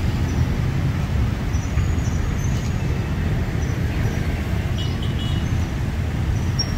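Steady low rumble of heavy vehicle engines and road traffic.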